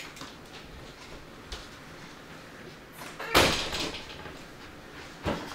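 A single loud bang a little over three seconds in, ringing out briefly, then a softer knock near the end, over low room noise.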